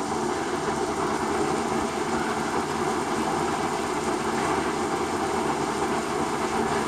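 Train rumbling by as a steady, even noise.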